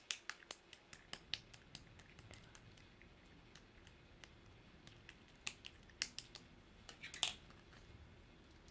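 Red clear slime being pressed and stretched by hand, giving sharp sticky clicks and small pops: a quick run of them in the first two seconds, then scattered ones, with a cluster of louder pops about seven seconds in.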